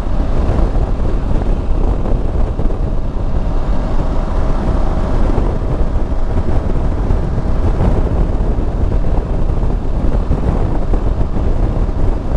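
Wind rushing over the microphone with the steady drone of a Yamaha Super Tenere parallel-twin motorcycle engine, riding at a constant road speed.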